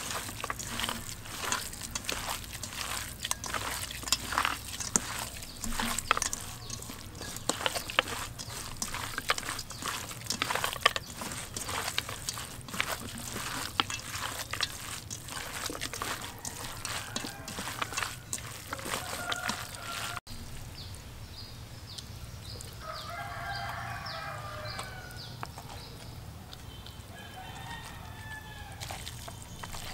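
A hand kneading a wet chopped stuffing mixture in a stainless steel bowl, a dense run of crackling and clicking. About two-thirds through this stops abruptly; a rooster then crows in the background, amid short repeated high chirps.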